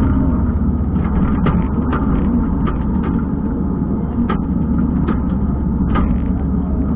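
Kubota skid steer's diesel engine running steadily under load, with scattered short clicks and knocks.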